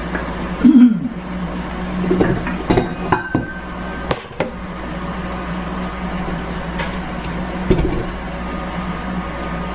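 Steady hum of a food dehydrator running, with a few separate knocks and clinks from handling the mixer's dough hook and bowl.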